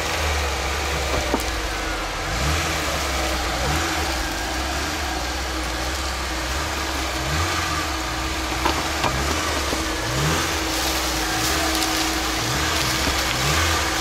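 Lada Niva engine working hard as the car crawls through mud and ruts, its revs rising in short pushes again and again. A couple of sharp knocks come through, the loudest about nine seconds in.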